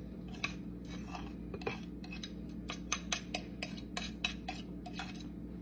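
A fork scraping and tapping chopped boiled egg off a plate into a glass bowl: a run of light clicks and scrapes that comes faster in the second half.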